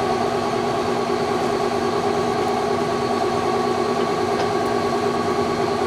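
Leblond engine lathe running at a steady speed, its motor and geared headstock giving a constant hum with a few steady tones.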